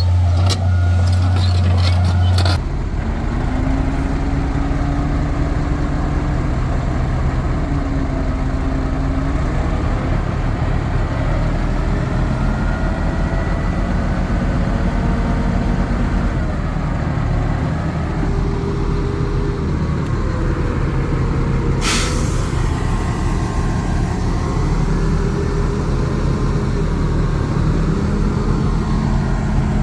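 Heavy diesel engines of earthmoving machines running, their pitch slowly rising and falling with the load. A louder low drone stops abruptly about two and a half seconds in, and a short sharp hiss comes about twenty-two seconds in.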